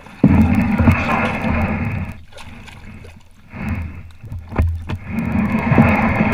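Plastic kayak being pulled ashore by hand: the hull scrapes and rumbles over the sticks and leaf litter of the bank, with knocks from hands gripping the bow. It comes in two long drags, from about a quarter second in to about two seconds, then again from about three and a half seconds on.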